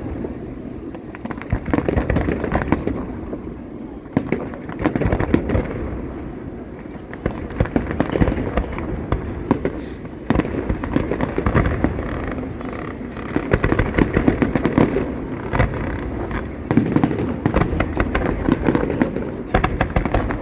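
Fireworks going off in dense, rapid volleys of bangs and crackles that come in waves with short lulls between.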